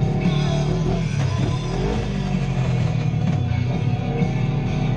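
Background music with guitar and drums, playing steadily.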